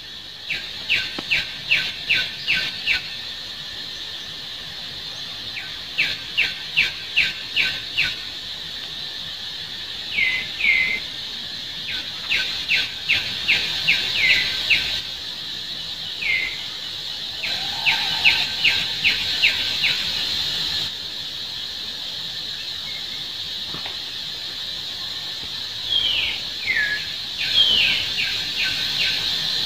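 Animal calls: runs of rapid high chirps, about five a second and two to three seconds long, come four times, with short falling squeaks scattered between them and several near the end, over a steady high drone.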